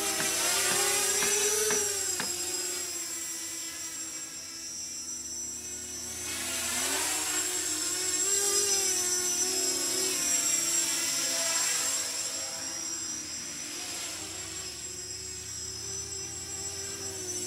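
A 280mm FPV racer quadcopter, small electric motors spinning large propellers, buzzing in flight. The pitch wavers with the throttle, and it grows louder and quieter twice as the quad flies nearer and farther.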